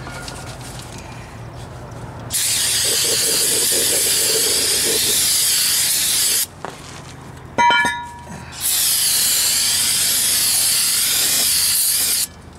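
Aerosol brake cleaner sprayed onto a new brake rotor in two long hissing bursts of about four seconds each, with a short metallic clink between them.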